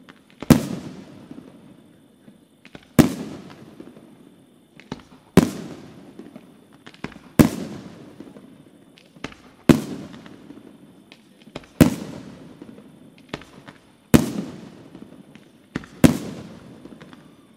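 Aerial firework shells bursting overhead: eight loud bangs at a steady pace of about one every two and a half seconds, each trailing off in a long echo, with quieter pops between them.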